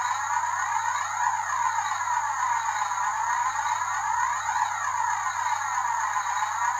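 Electronic swooping tone from background music: a sweeping synth sound that falls and rises again about every three seconds, steady in level throughout.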